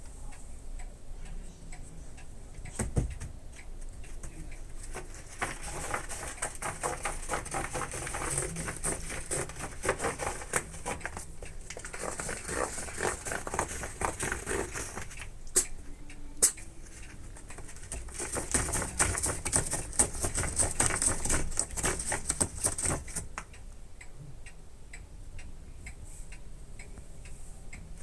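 A munchkin cat's claws scratching a scratcher in two long bouts of rapid rasping strokes, the first starting about five seconds in and the second near the twenty-second mark, with two sharp sounds in the pause between them. A clock ticks steadily in the quieter stretches.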